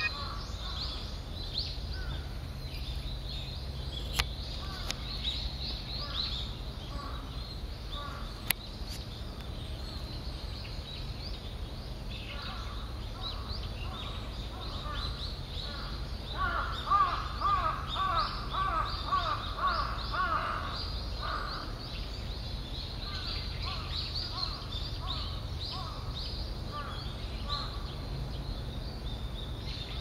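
Wild birds calling in park woodland: many short, high chirps keep coming, and from about the middle a louder run of rapid, lower-pitched calls lasts for several seconds.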